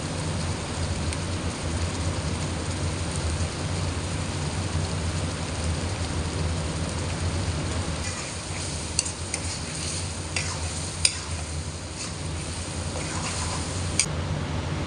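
Chicken karahi curry sizzling and bubbling in a metal karahi over a steady low hum. In the second half come scattered light clicks, then a sharp metal clink near the end as a spoon starts stirring the pan.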